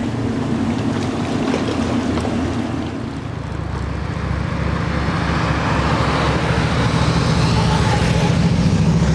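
Steady road traffic and engine noise, louder in the second half as a car passes on the road alongside.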